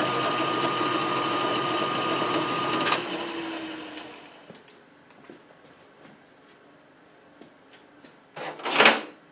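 Metal lathe running steadily with a whine, then switched off with a click about three seconds in and spinning down over the next second or so. A brief loud noise sounds near the end.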